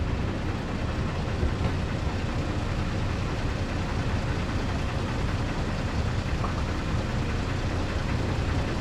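Off-road 4x4's engine idling steadily while the vehicle is stopped.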